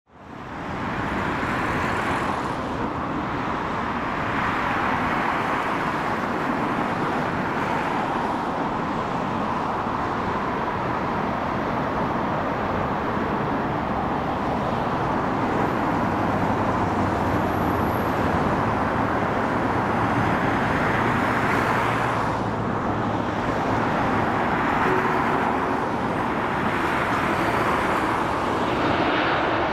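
Steady outdoor roar of road traffic, with passing vehicles swelling up now and then. A jet airliner's engines approaching join in toward the end.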